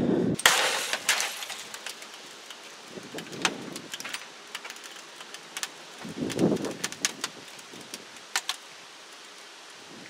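A CRT monitor battered by a bat still cracking on its own: scattered sharp clicks and ticks as its cracked casing and glass give. A loud knock comes about half a second in, and a few dull thumps follow.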